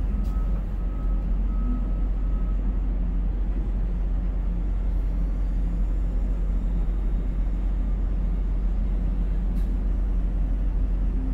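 Steady low rumble of a Konecranes ship-to-shore container crane's hoist machinery, heard inside the operator's cab as the spreader is lowered into the ship's hold. A faint thin whine comes and goes for the first couple of seconds.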